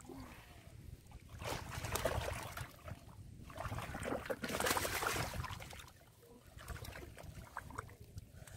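Hands sweeping and scooping through shallow muddy water, sloshing and splashing in a few bursts with short pauses between.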